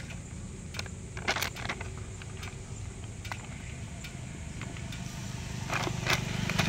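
Plastic packaging crinkling and small plastic clicks as the parts of a phone mount are pulled from their bag and handled, over a steady low hum of a motor vehicle's engine that grows louder near the end.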